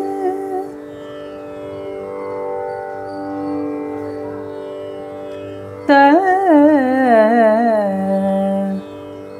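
A voice singing a Carnatic alapana phrase in raga Natai on the syllables 'ta-na', over a steady drone. The drone sounds alone for about five seconds; the phrase then enters loudly about six seconds in, with wavering gamakas stepping down in pitch, and ends on a held low note.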